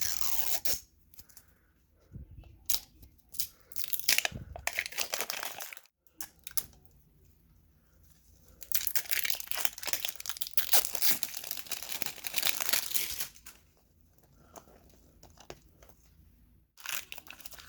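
Plastic wrapping on small toy capsule packaging being torn open and crinkled by hand, in several rustling bouts with short quiet pauses between, the longest in the middle.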